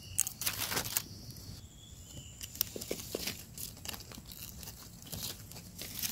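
Dry leaf litter rustling and crackling under hands, with scattered light clicks and snaps, as a red bolete mushroom is cut with a small knife and picked from the forest floor.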